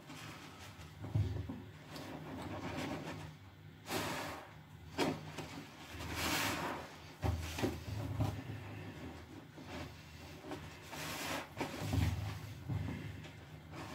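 Soapy, foam-soaked sponges squeezed by hand over a plastic tub: wet squelching and bubbly crackling that come in irregular bursts, several seconds apart, with soapy water and foam falling back into the tub.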